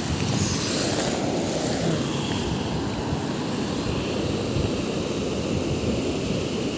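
Steady wind rumbling on the microphone over the wash of small waves on a sandy beach.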